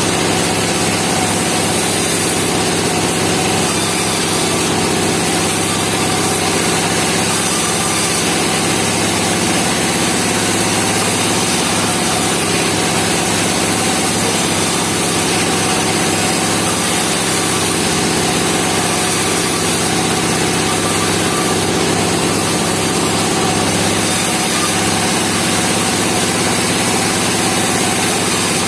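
Portable band sawmill running steadily, its engine and blade giving an even machine drone with no pauses.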